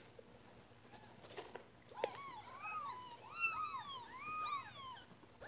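One-week-old kittens mewing: a quick run of short, high cries, each rising and falling in pitch, starting about two seconds in just after a sharp click.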